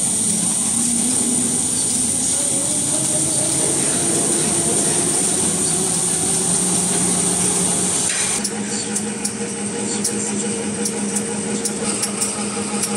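Dental bib napkin paper processing machine running, a steady mechanical whir with a high hiss and a tone that creeps slowly upward. About eight seconds in, the sound changes to a steadier hum from the colour-printing roller units, with a regular ticking about twice a second.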